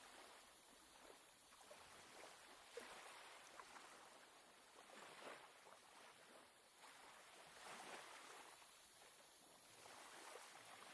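Faint rushing of water that swells and fades about every two and a half seconds.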